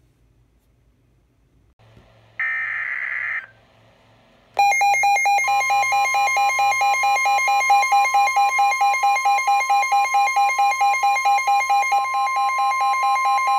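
Weather-radio emergency alert: about two seconds in, a second-long burst of SAME digital header data, then the receiver's loud rapid pulsing alarm beep. About a second after the beeping starts, the steady 1050 Hz NOAA Weather Radio warning alarm tone joins it, signalling that a severe thunderstorm warning follows.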